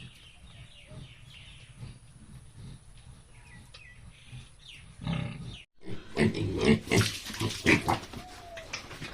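Pigs grunting, quietly at first, then louder and more crowded with short squeals after a brief break about halfway.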